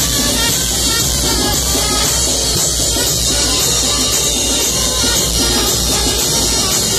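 Live brass band (banda de viento) playing a chinelo dance tune loud and close, with sousaphone, trumpets and crash cymbals going without a break.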